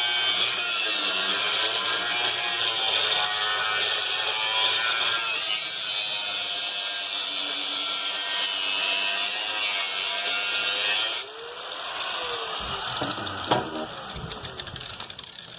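A power cutting tool cutting into a steel safe, its whine wavering up and down in pitch as the load changes. About eleven seconds in it is released and winds down with a falling pitch, followed by a single sharp knock.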